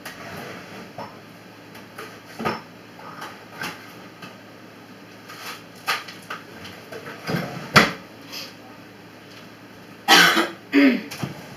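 Scattered light knocks and clacks of things being handled in a kitchen, with a louder knock about eight seconds in. Near the end comes the loudest sound, a short rough burst twice in quick succession.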